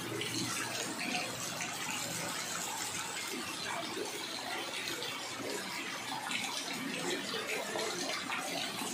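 Steady rushing water noise of a rain-flooded street, with muddy floodwater flowing across the road.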